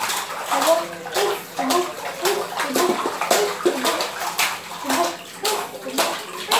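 Shallow water splashing and slapping on a tiled floor as a child's hands and body beat it, about twice a second, with a child's voice vocalising between the splashes.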